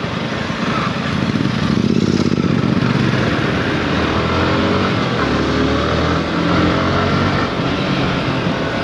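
Sport motorcycle engine running under way over rough ground, its engine note rising and falling.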